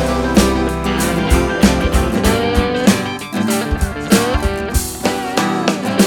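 Background music led by guitar, with sliding notes over a steady drum beat.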